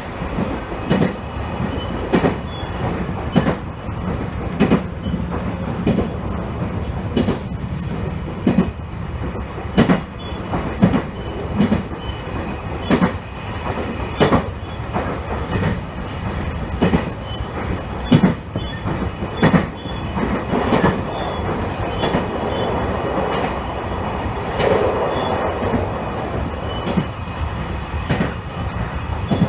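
Electric train running along the line: a steady rumble with wheels clicking over rail joints about once a second, often in pairs.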